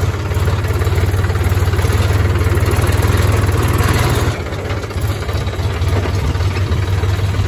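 Mahindra tractor's diesel engine running steadily with a deep, even hum, heard from the driver's seat; it eases off a little about four seconds in.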